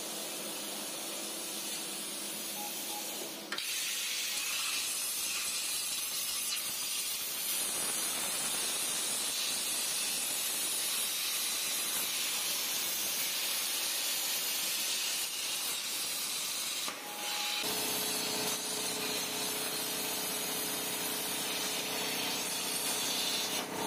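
CNC plasma cutter torch cutting aluminium plate at 30 amps, a steady hiss of air and arc. The hiss steps up louder about three and a half seconds in, breaks off briefly about seventeen seconds in, and then comes back with a steady tone under it.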